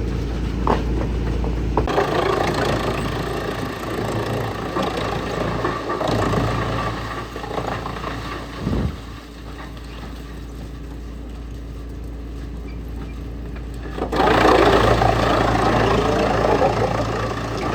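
Wood chipper's engine running steadily. The sound changes abruptly about two seconds in and again near fourteen seconds, getting louder and fuller at the second change.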